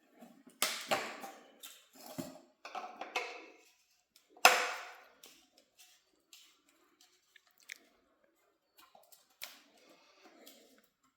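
Plastic irrigation fittings being handled and threaded together by hand, with Teflon tape on the threads: scattered clicks and crinkly rustles, and one sharp knock about four and a half seconds in.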